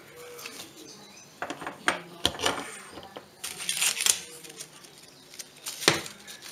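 Kitchenware being handled and set down on a table: a plastic funnel and bowl knocking and clattering in a string of short clicks and knocks, the sharpest just before the end.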